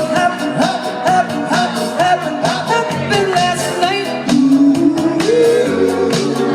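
Doo-wop vocal group singing, several voices in harmony over a steady beat.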